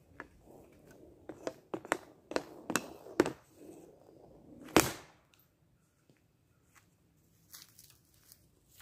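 Hockey stick blade tapping an orange ball back and forth on a homemade shooting pad: a run of about eight sharp clicks over three seconds, then one loud crack as the ball is shot, about five seconds in.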